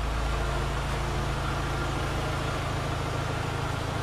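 A vehicle engine idling steadily, a low even hum that does not change.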